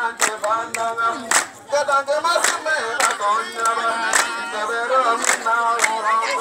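A group of voices singing together, with sharp hand claps struck at an uneven beat.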